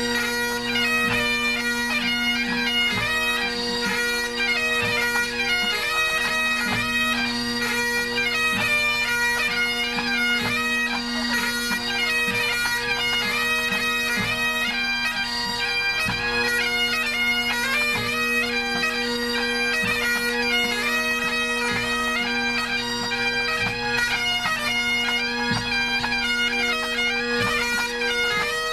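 A pipe band's Highland bagpipes tuning up together: steady drones under several chanters playing melody lines at once.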